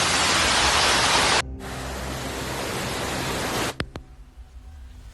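Loud, steady rushing of heavy rain and floodwater, which cuts off abruptly about a second and a half in. A quieter rushing with a low hum follows, then drops away near the end after a sharp click.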